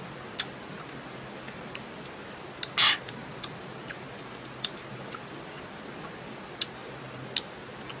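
Biting and chewing small green grape-like fruit: scattered sharp wet clicks, with one louder crunch about three seconds in, over a steady hiss.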